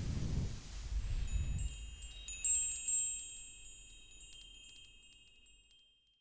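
Logo sting sound effect: low whooshing swells in the first two seconds, then a cluster of high, tinkling chime tones that ring on and fade out near the end.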